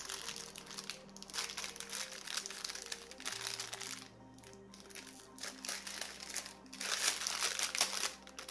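Packaging crinkling and rustling as small craft supplies are handled and unwrapped, in repeated bursts with a short lull about halfway through. Soft background music plays underneath.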